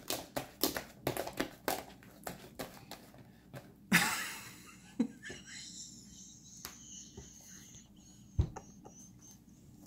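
Homemade slime being squeezed and stretched by hand, making many small sticky clicks and pops that thin out after about three seconds, with a brief louder rustle about four seconds in.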